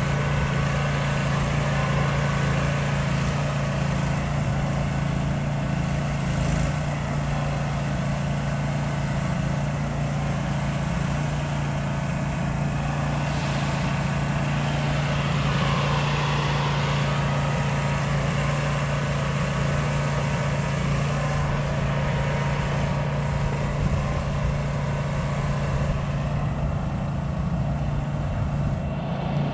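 Pressure washer engine running steadily, with the hiss of water spraying from the wand at low pressure.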